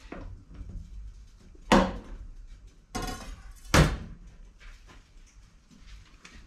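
Two sharp knocks or bangs about two seconds apart, with a smaller knock between them and faint clatter around them, as a chef handles utensils and a squeeze bottle at a steel kitchen counter.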